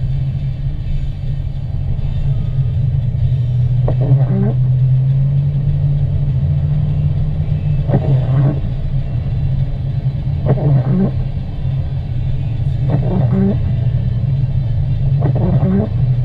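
Car driving on a wet road in rain and sleet: a steady low rumble of engine and tyres, with a brief sweeping sound recurring every two and a half to four seconds.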